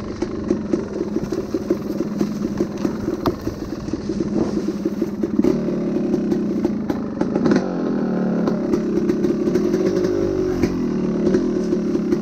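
Yamaha dirt bike engine running at low revs on a rough trail, its pitch rising and falling with the throttle about midway through. Scattered sharp clicks and clatter sound over the engine.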